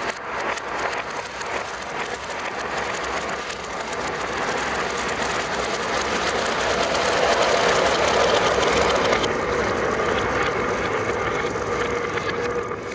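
Many marbles rolling and clattering down a marble run's tracks, a dense, continuous rattle that swells to its loudest in the middle.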